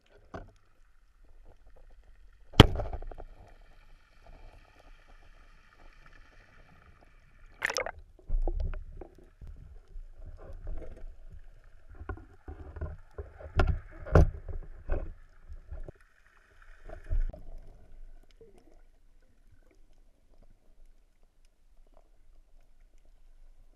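Underwater sound picked up through an action camera's waterproof housing. A sharp knock comes about two and a half seconds in and another near eight seconds, with a steady high whine between them. After that there is a run of muffled knocks and rushing, which then quietens.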